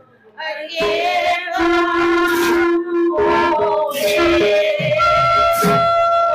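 Devotional song: a woman singing long held notes into a microphone, accompanied by a two-headed barrel drum and clashing hand cymbals. The music starts after a short pause at the very beginning.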